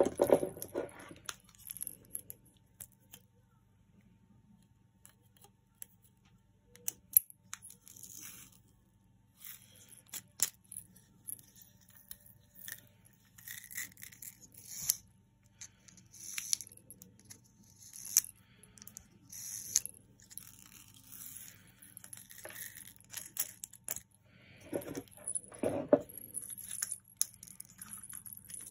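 Hands handling small wooden busy-board cubes with laces and beads: scattered light clicks and knocks of wood and beads, with short bursts of rustling and scraping. A couple of fuller knocks come near the end.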